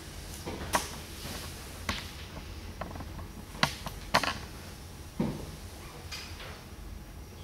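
Sheets of paper being handled and leafed through, giving a handful of short crisp rustles and light knocks at uneven intervals, over a steady low room hum.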